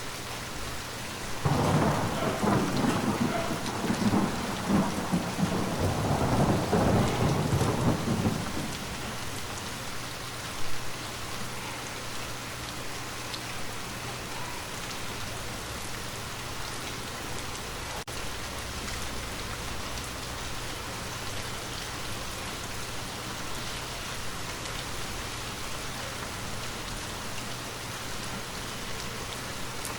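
Steady rain falling, with a long roll of thunder that starts about a second and a half in, lasts some seven seconds and dies away, leaving the rain alone.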